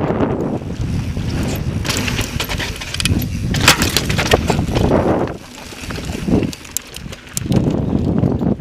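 Mountain bike ridden over slickrock and rocky singletrack, heard from a handlebar-mounted camera: wind buffeting the microphone, tyres rolling over rock, and sharp clattering from the bike over bumps. It drops quieter for about two seconds past the middle.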